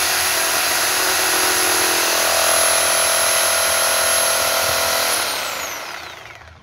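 Bosch GSA 1300 PCE reciprocating saw running at full speed, its blade sawing down into a wooden table top with a steady high whine. About five seconds in it is switched off and winds down with a falling whine.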